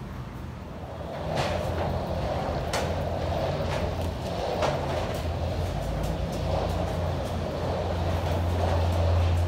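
Wheeled carry-on suitcase rolling along a walkway floor: a steady rumble that starts about a second in, with sharp clicks every second or so.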